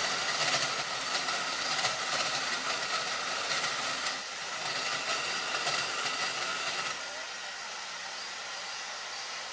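Belt grinder grinding the profile of a steel knife blank: a steady, hissing grind. About seven seconds in the grinding stops and the grinder runs on with a quieter hum.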